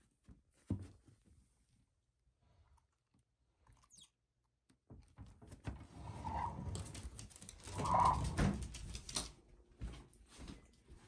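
Wooden sliding door rolling open along its track, rattling for several seconds, with two brief squeaks during the slide. A single knock comes about a second in and another thump near the end.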